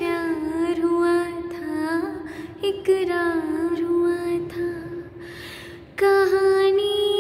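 A woman singing a slow melody in long held notes with a waver in the pitch. The voice fades before a new phrase comes in loudly about six seconds in.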